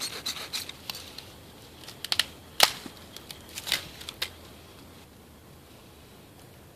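Dry split wood and shavings snapping and clicking as they are broken and handled by gloved hands over a tinder bundle: a scatter of sharp snaps, the loudest about two and a half seconds in, dying away after about four and a half seconds.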